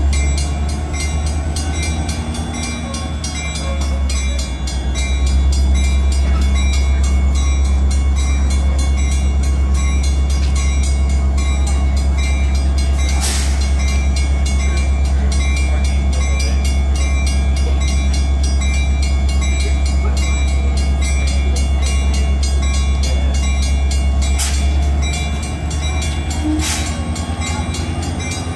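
Metra commuter train standing at the station with its MP36-3S diesel locomotive running: a loud, steady low hum with steady higher tones over it. A few sharp clanks come in the second half.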